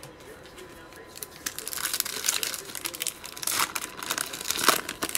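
Foil wrapper of a 2020 Panini Mosaic football card pack being crinkled and torn open by hand. The crackling starts about a second in and has its sharpest burst near the end.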